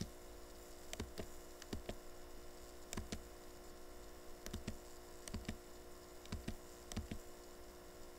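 Irregular faint clicks and taps of a computer mouse and keyboard as windows are switched, over a steady electrical hum.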